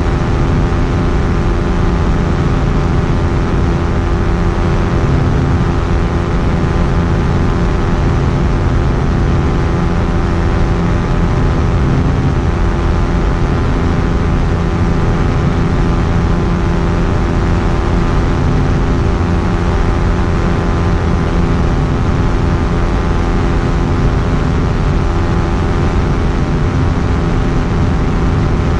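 Quicksilver Sport 2S ultralight aircraft's two-stroke engine and propeller running steadily at constant power, a loud even drone with no change in pitch.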